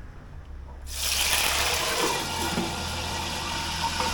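Sago worms dropped into hot deep-frying oil, which starts sizzling suddenly about a second in and keeps up a steady hiss.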